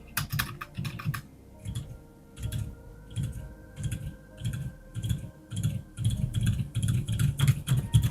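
Typing on a mechanical keyboard fitted with Outemu Cream Yellow silent tactile switches: a steady run of muffled, dull keystrokes, getting faster about six seconds in. The keystrokes are damped by silicone pads on the sides of the switch stems.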